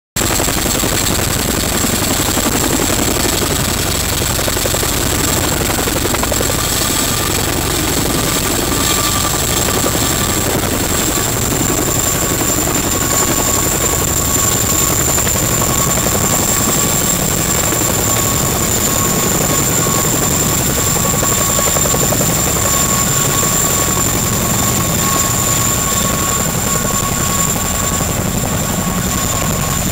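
CH-47 Chinook tandem-rotor helicopter hovering, a steady, loud rotor beat with a high, even turbine whine over it.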